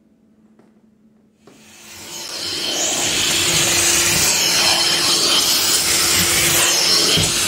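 Carpet extraction machine's vacuum sucking through a hand stair tool pressed onto stair carpet. It starts about one and a half seconds in, builds over a second or so and then holds as a loud, steady hiss.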